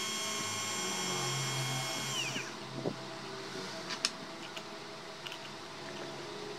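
The homemade mini lathe's 775 DC motor runs with a steady high whine, then winds down in pitch and stops a little over two seconds in. A few light clicks follow, the sharpest about four seconds in, as the parts at the shaft are handled.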